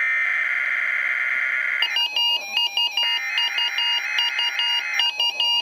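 NOAA Weather Radio SAME digital header, a harsh buzzing data burst that comes in stretches of about two seconds with short gaps, marking the start of the Required Weekly Test. From about two seconds in, the weather radio receiver's own electronic alert tune beeps over it, set off by the test code.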